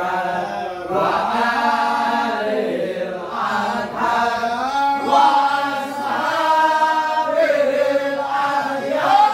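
A group of men chanting a sholawat, devotional Arabic praise of the Prophet, together in a continuous melodic line.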